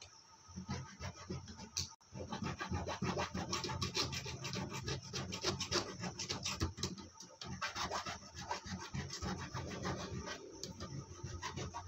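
Small hand file rubbing back and forth in quick short strokes on a starter contactor's copper contact strip, scraping off carbon deposits left by arcing. The strokes start about two seconds in.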